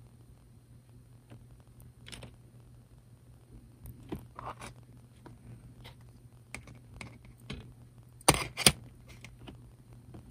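Small scratches and clicks from fingers and tools handling fine rigging thread on a plastic ship model. Two sharp clicks come in quick succession near the end, over a faint low hum.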